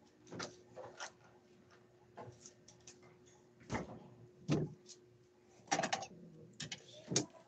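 Irregular knocks and clicks from a phone being picked up and handled, with a thin plastic water bottle crackling as it is drunk from in the second half, over a faint steady hum.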